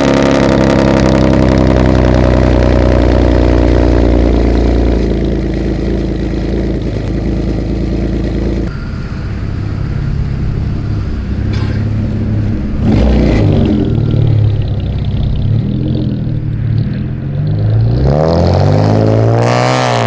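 Chevrolet Camaro engine running: a loud, steady idle at first, then several rises and falls in revs as the car pulls away and accelerates.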